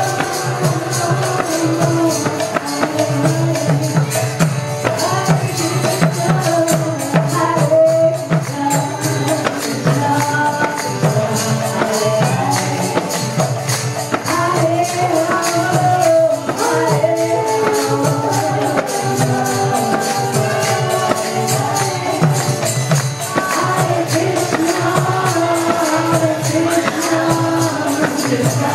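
Kirtan: voices chanting a devotional mantra together over a fast, steady clash of small hand cymbals (karatalas), with a rhythmic drum underneath.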